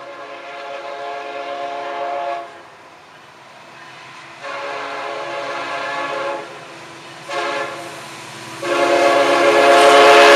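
Diesel locomotive air horn sounding the grade-crossing signal: two long blasts, a short one, then a final long blast still sounding at the end. The horn gets louder as the train approaches, with the low rumble of the locomotives building underneath.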